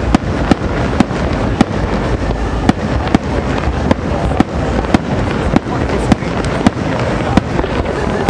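Fireworks display: aerial shells bursting one after another, sharp bangs about twice a second over a continuous low rumble of the show.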